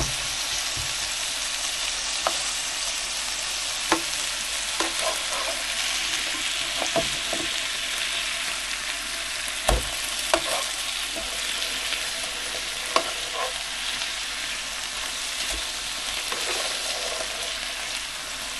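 Beef and onions sizzling in oil in a pan, with a steady frying hiss. A spoon knocks and scrapes against the pan now and then as the food is stirred, with the loudest knock about halfway through.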